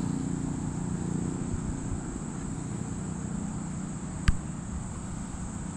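Steady high-pitched chirring of insects over a low rumble, with one sharp click about four seconds in.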